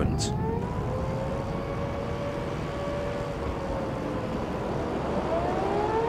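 Air raid siren wailing: its pitch rises, holds, falls a little after four seconds in and starts to rise again near the end. This rising-and-falling wail is the warning of an incoming air raid. A low steady rumble runs underneath.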